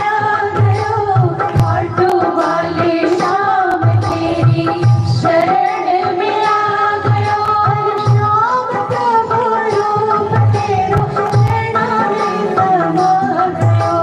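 A woman singing a devotional song (bhajan) into a microphone over an amplified band, with a hand drum beating a steady rhythm beneath her voice.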